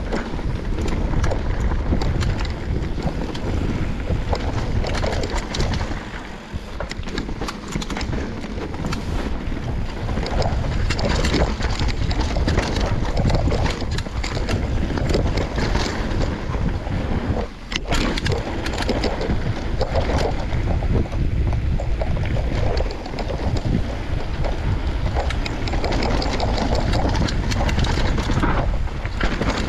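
Mountain bike descending a rough, rooty dirt trail: wind buffeting the microphone and tyres rumbling over the ground, with frequent rattles and knocks as the bike hits roots and rocks.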